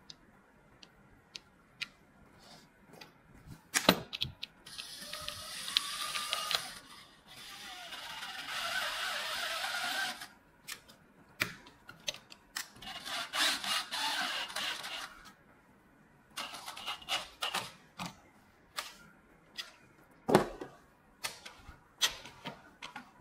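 A new handle being fitted to an aluminium window: scattered clicks and knocks of the handle and metal window hardware. Three stretches of a few seconds each, starting about five seconds in, carry a rasping mechanical noise from a tool worked against the frame.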